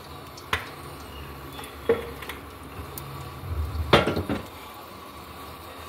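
Kitchen utensils knocking against cookware: a single knock about half a second in, another about two seconds in, and a louder clatter around four seconds in, over a low steady hum.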